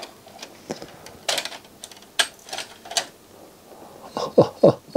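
The loading mechanism of a Sony MDS-JE520 MiniDisc deck taking in a disc, a string of mechanical clicks and clacks as the cartridge is drawn in and seated: the repaired loader now accepts the disc it used to refuse. Near the end comes a quick run of short chirps falling in pitch.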